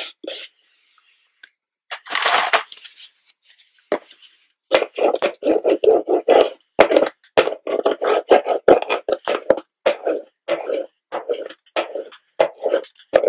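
Small hand roller (brayer) rolled quickly back and forth over glue-backed fabric on a wooden box lid, a rapid rumbling run of strokes about three or four a second starting about five seconds in. A brief rubbing noise comes about two seconds in, as the fabric is smoothed by hand.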